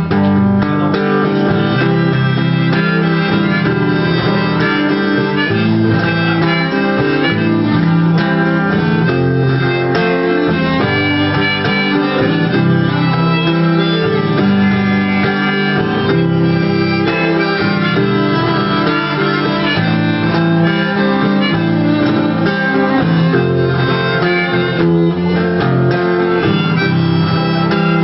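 Instrumental break in an acoustic song: a guitar plays on steadily while a solo lead instrument carries the melody above it, with no singing.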